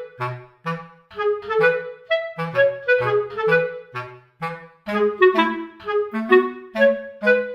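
Background music led by a clarinet-like woodwind playing a quick run of short, bouncy notes over a simple bass line.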